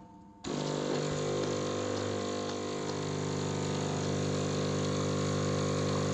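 Jura E8 automatic coffee machine starting a steady mechanical run about half a second in, carrying the squeak the machine has developed.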